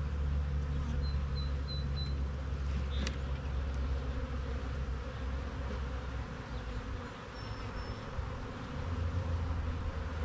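Honeybees buzzing steadily over an open hive full of frames, an even low hum, with a single light click about three seconds in.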